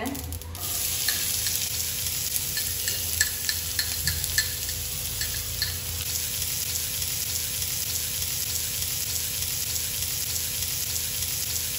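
Chopped onion sizzling in hot oil in a frying pan, a steady hiss that starts about half a second in, with light clicks over the first several seconds.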